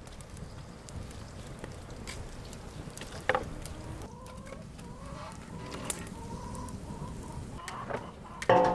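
Wood fire crackling faintly in a brick hearth, with a sharp knock about a third of the way in. Near the end a large aluminium cooking pot is set down on the bricks with a loud, ringing metal clank.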